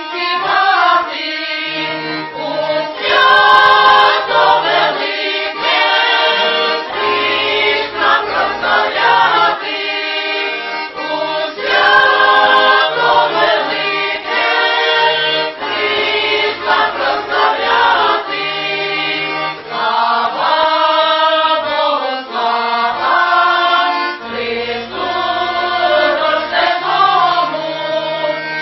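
A women's folk choir sings a Ukrainian Christmas carol (koliadka) in phrases, accompanied by an accordion. The accordion's low bass notes alternate steadily beneath the voices.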